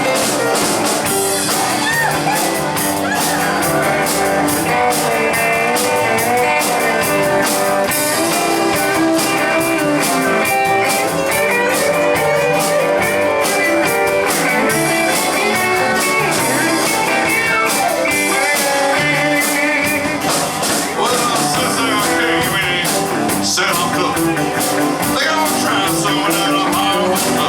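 Country honky-tonk band playing an instrumental break: electric guitar, steel guitar, keyboard and a steady drum kit beat, with no vocals.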